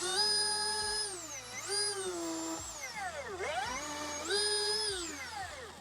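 Milwaukee M18 Fuel 20-inch dual-battery electric chainsaw running and cutting a large limb. Its motor whine speeds up and holds, sags in pitch, then drops sharply about three seconds in and climbs back to full speed.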